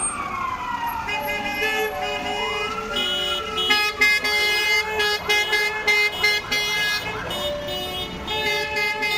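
A siren wailing in slow rising-and-falling sweeps, overlapped from about a second in by several vehicle horns; from about four seconds in, the siren ends and many horns honk in short, repeated overlapping toots from a passing convoy of vans and trucks.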